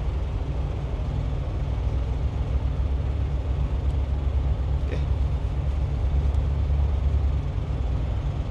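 Heavy truck diesel engine idling: a steady low drone that swells a little for a couple of seconds near the end. A faint tap about five seconds in.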